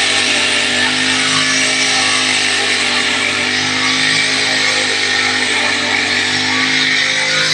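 Backpack brush cutter engine running steadily at high speed, its cutting head trimming grass.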